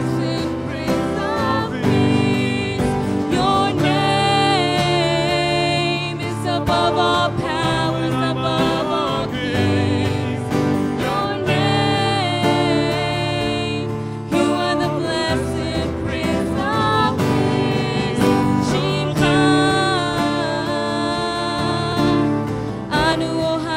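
Live worship music: a band playing sustained chords, with a melody line wavering in vibrato above them.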